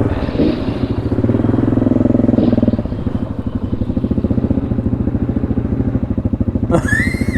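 ATV engine running at low speed with a rapid, even firing pulse; the throttle eases off about three seconds in and it carries on at a lower, lumpier idle-crawl.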